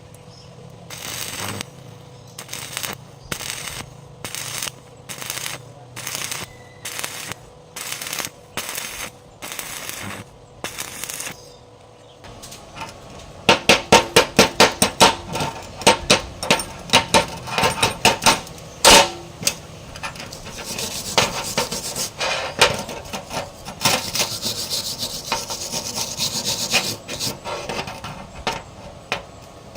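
A hand tool works material in rhythmic rasping strokes, at first about one a second. About halfway through, the strokes turn much quicker and louder, with a few sharper knocks.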